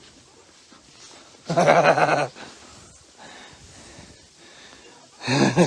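A goat bleats once, a loud wavering call of under a second about a second and a half in. A second short call comes near the end.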